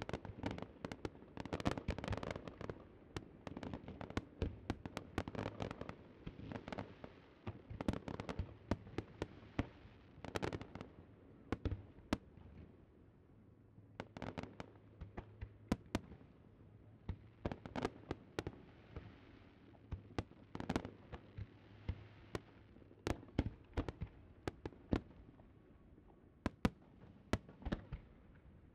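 Fireworks display: a long run of sharp bangs and crackles in quick, irregular succession, at times several a second. They thin out for a few seconds around the middle before picking up again.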